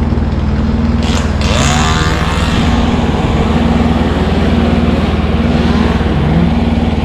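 A large engine running steadily at idle, with a brief hiss about a second in.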